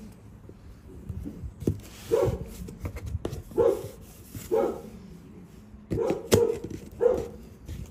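A dog barking, about six short single barks spaced roughly a second apart, with a couple of sharp knocks in between.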